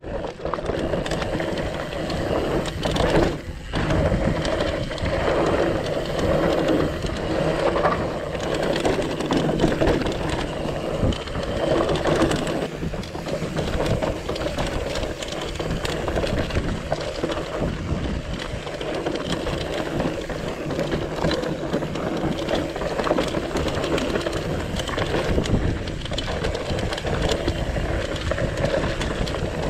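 Mountain bike ridden over rocky singletrack: tyres rolling and crunching over rock and dirt, with a steady clatter and rattle of the chain and frame as the bike is jolted by the rocks.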